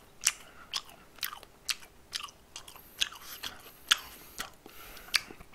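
A person chewing crispy fried food close to the microphone, with a crunch about twice a second.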